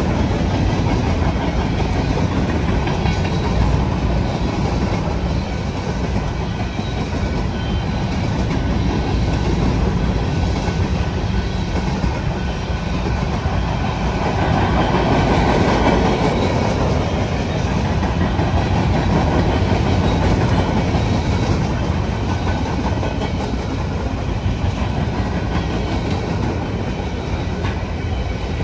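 Union Pacific freight train rolling past, its cars making a steady, loud rolling noise of wheels on rail.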